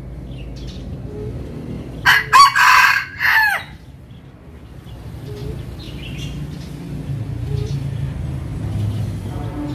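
A junglefowl-cross rooster crows once, a short crow lasting under two seconds, about two seconds in.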